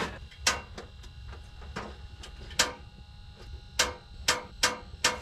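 Propane heater's push-button igniter clicking as someone tries to light it: about six sharp single clicks at uneven intervals, several close together near the end.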